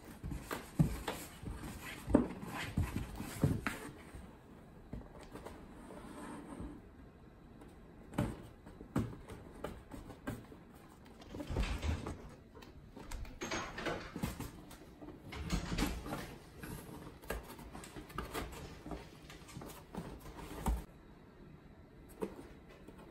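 Norwegian Forest Cats scrambling over and into a cardboard box: irregular scratching and rustling of the cardboard with dull knocks as they bump against it, dying down near the end.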